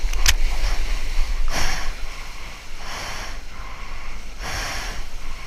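Water rushing and splashing around a surfboard in small breaking whitewater, with a low rumble of wind on the microphone. A sharp click comes near the start, and the splashing surges about every second and a half.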